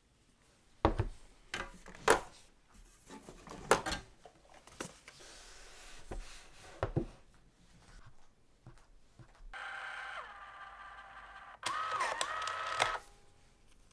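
Clicks and taps of a glass jar being handled and buttons being pressed, then an Epson label printer whirring for about three seconds near the end as its motor prints and feeds out a label strip.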